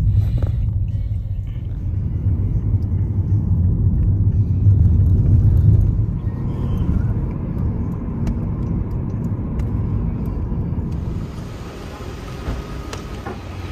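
Low rumble of a moving vehicle heard from inside it, strongest in the bass. About eleven seconds in the rumble drops and a steady hiss comes in.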